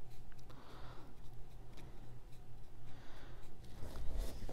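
Soft, scratchy strokes of a small paintbrush dabbing acrylic paint onto the edge of a small stretched canvas, over a steady low hum. A louder low bump about four seconds in as the canvas is handled and turned.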